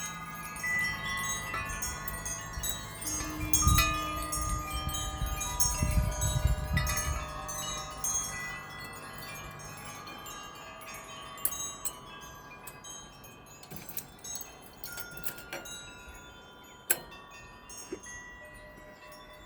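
Wind chimes ringing, many tones at different pitches struck and left to fade. Low knocks and rumbling come between about four and seven seconds in, and a sharp click sounds near the end.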